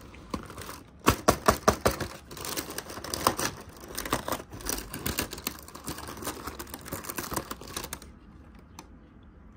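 Rapid clicking, crinkling and rustling of packaging being handled and opened. The loudest part is a quick run of sharp clicks about a second in, and the handling stops about eight seconds in.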